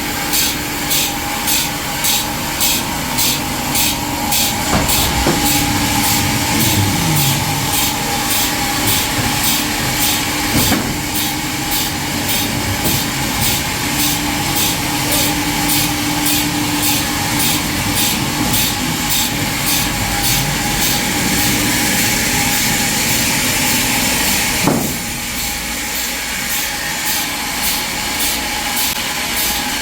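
Sawmill saw running through a walnut log, a steady mechanical hum with a regular pulse about twice a second. There are a few sharp knocks, the last one about 25 seconds in, after which the sound eases off a little.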